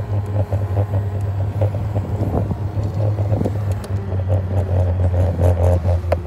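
Electric scooter riding along a road: a steady low rumble of tyre and wind noise on the handlebar-mounted phone's microphone.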